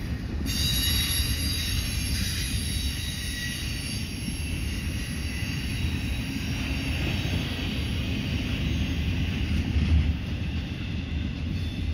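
Union Pacific intermodal freight train's well cars rolling past, a steady low rumble of wheels on rail with a thin, high-pitched wheel squeal over it that fades somewhat toward the end.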